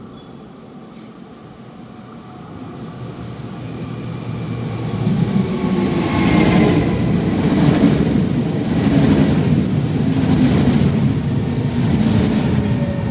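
Trenitalia ETR 425 'Jazz' electric multiple unit arriving at a platform. The rumble of its wheels on the rails grows louder over the first five seconds or so as it draws near and runs past, with a falling whine from its electric traction equipment as it slows.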